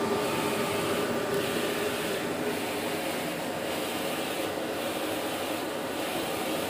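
UV flatbed printer running with a steady mechanical hum, with a faint swish repeating about once a second.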